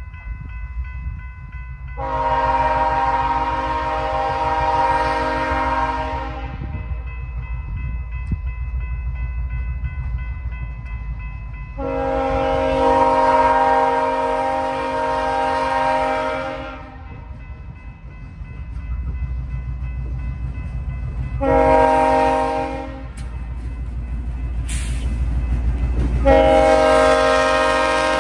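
Diesel locomotive's air horn sounding the grade-crossing signal as the engine approaches: two long blasts, a short one, then a long one that runs on. Underneath, the low rumble of the diesel engine and train grows louder as it nears.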